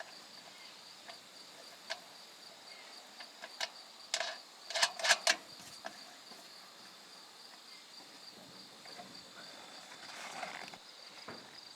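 A steady, high, evenly pulsing insect chorus, with a few sharp knocks scattered through it, the loudest a quick cluster about five seconds in.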